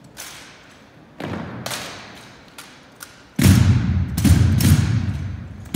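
Sharp, echoing knocks of a drill team's rifles and boots striking a hardwood gym floor: a few scattered strikes, then a louder run of heavy knocks from about halfway through.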